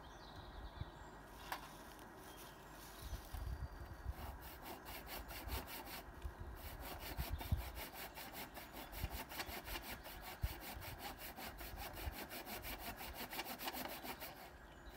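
Hand saw cutting through a branch of a fallen tree in quick, even back-and-forth strokes. It starts about three seconds in, pauses briefly midway, and stops near the end as the branch is cut through.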